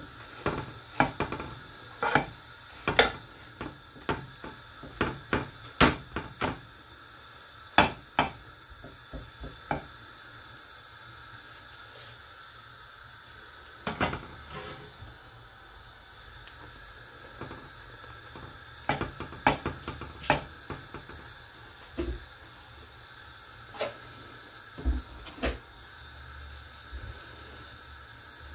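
A metal spoon knocking and scraping against a non-stick frying pan as slices of bread are fried and moved about, over a faint steady sizzle. The knocks come thick and fast for the first ten seconds or so, then in scattered bunches.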